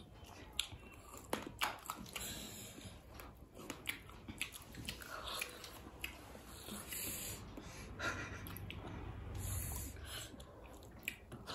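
People chewing and eating, with scattered soft mouth clicks.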